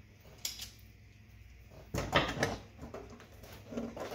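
A hand tool clinking and knocking against metal parts inside a steel electrical box while a nut is tightened down, with a single click early, a loud cluster of knocks about two seconds in and more knocks near the end.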